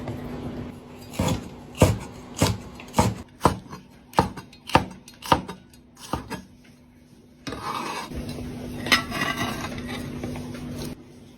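Knife chopping on a wooden cutting board, a run of sharp strokes about two a second, then a pause and a few scattered strokes.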